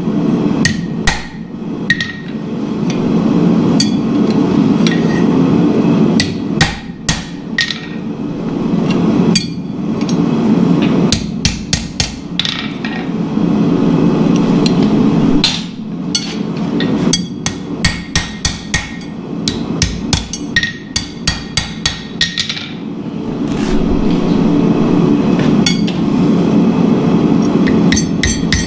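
Hammer blows on hot steel over an anvil, forging blacksmith tongs: uneven strikes with short pauses, then a quick run of lighter blows near the end. A steady low rushing noise runs underneath.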